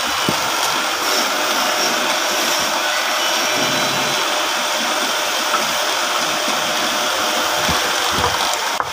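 Steady, loud running noise of workshop machinery, with a couple of faint knocks.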